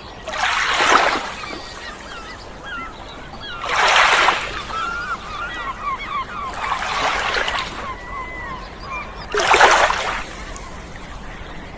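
Waves washing in about every three seconds, with seagull calls, short squeaky cries, between them.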